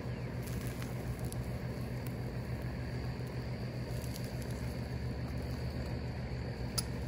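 Steady low drone of the metal-melting furnace's burner running, with a few faint ticks and one sharper tick near the end.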